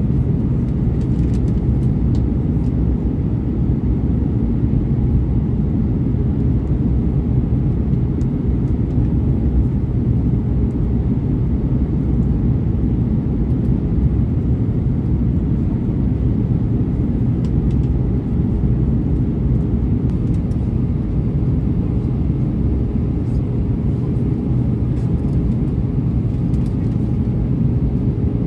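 Steady low rumble of airflow and engines inside the cabin of an Airbus A320-232 airliner on descent towards landing, with a faint steady hum.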